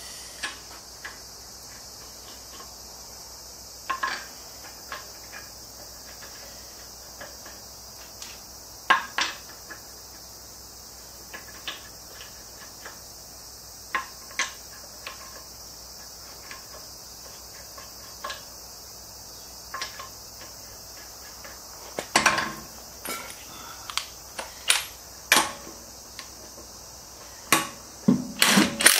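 Scattered metallic clicks and clinks of lug nuts being threaded by hand onto a car wheel's studs, coming thicker and louder in the last several seconds, over a steady high-pitched background drone.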